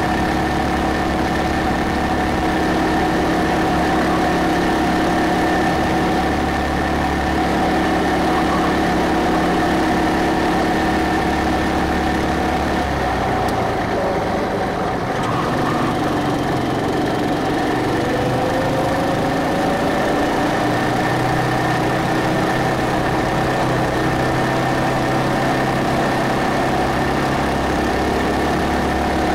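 Go-kart engine running under way, heard from the driver's seat. About 13 seconds in its steady note drops, then slowly climbs again as the kart takes a bend and picks up speed.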